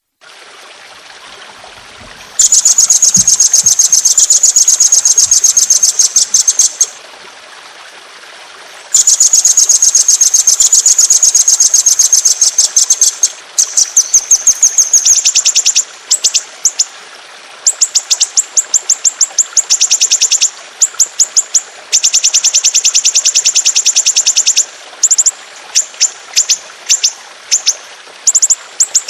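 Songbird tutoring recording of long, rapid rolling trills: fast strings of high, evenly repeated notes held at about one pitch, running for several seconds at a time and broken by short pauses, then coming in shorter bursts after the middle, over a faint hiss.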